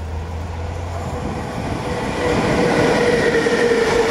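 ET22 six-axle electric freight locomotive and its container wagons passing close by, the rumble growing louder about two seconds in as the train draws level, with a steady tone running through the noise.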